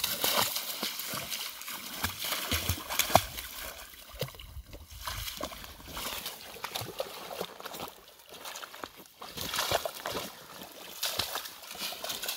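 A golden retriever wading through slushy, half-melted pond ice, breaking thin ice and splashing in icy water. Irregular crunches, sloshes and knocks of ice chunks, with the sharpest knock about three seconds in.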